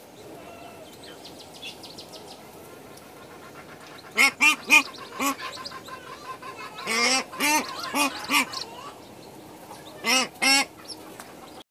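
Mother goose giving short honking calls in clusters: about four calls some four seconds in, five more around seven to eight seconds, and two near the end. Her newly hatched goslings peep faintly underneath.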